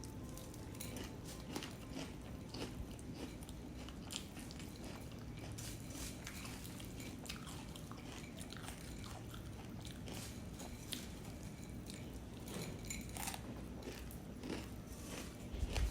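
A person chewing a mouthful of puffed rice (muri) with jackfruit, with many small irregular crunches.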